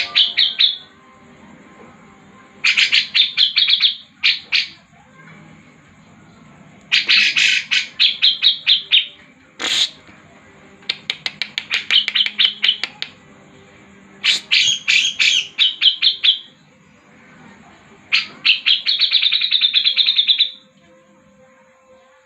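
A songbird singing in repeated bursts of rapid high chirps, each burst about two seconds long and coming every three to four seconds, with a single sharp click about ten seconds in. It is a lure song (pancingan) meant to set reluctant caged birds singing.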